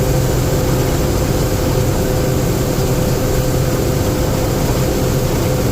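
Combine harvester running steadily during soybean harvest, a constant heavy drone with a steady low hum and a thin, even whine.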